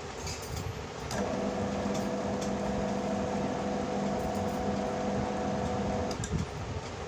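The 220 V AC pump motor of a motorized lubrication unit switches on about a second in, hums steadily for about five seconds, then cuts off: one timer-controlled lubrication cycle.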